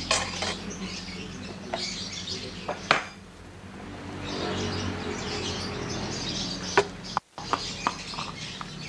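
Spatula clinking and scraping against a pan as spice paste frying in oil is stirred: a string of irregular sharp knocks over a steady hiss.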